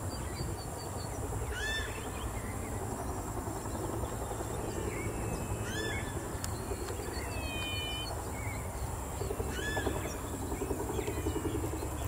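Great kiskadee calling: three short, sharp calls spaced about four seconds apart, over a steady low background rumble.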